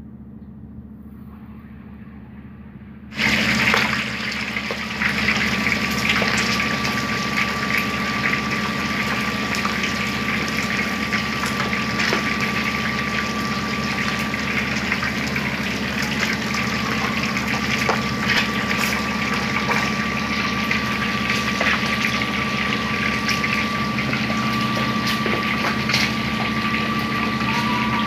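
A piece of chicken frying in deep hot oil. The sizzling and crackling start suddenly about three seconds in as it goes into the oil, then keep going steadily, over a steady low hum.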